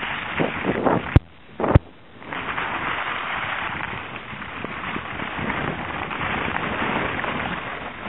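Strong wind buffeting the camera microphone in a steady rush. About a second in come two sharp clicks half a second apart, with the wind noise dropping away briefly around them.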